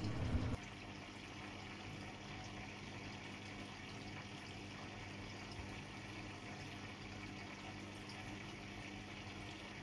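Aquarium filter running: steady water bubbling and trickling over a low, even electric hum. A short, louder low rumble comes at the very start.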